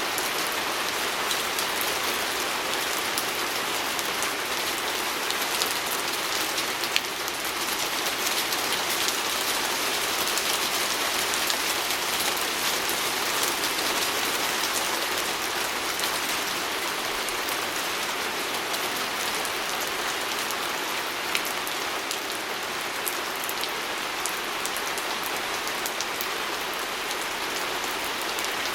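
Steady rain pattering on a window, a dense even hiss scattered with fine drop ticks.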